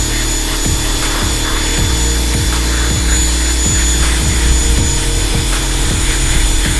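Ryobi 1600 PSI electric pressure washer running, its motor and pump giving a steady hum while the water jet hisses against stone, with a low pulsing about twice a second.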